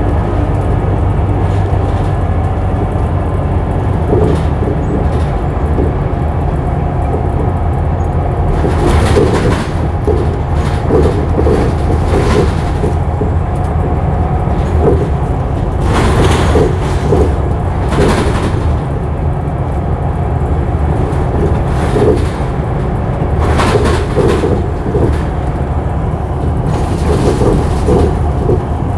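Scania L94UB bus running, its engine humming steadily with the whine of its loud ZF automatic gearbox over it. Bursts of rattle and clatter come through several times.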